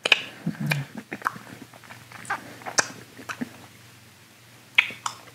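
Mouth noises of a man sucking and chewing a Warheads extreme sour hard candy: scattered wet smacks and clicks of lips and tongue, with a brief low hum from the throat about half a second in.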